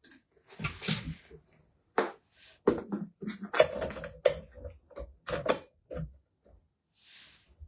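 Rustling, then a run of sharp knocks and clicks as parts are handled and fitted together during assembly.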